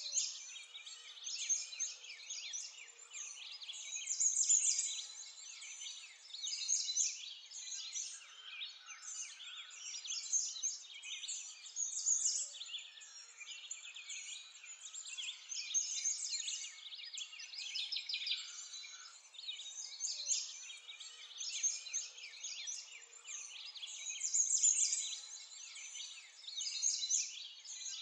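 A continuous chorus of many small birds chirping and twittering, swelling and easing every few seconds.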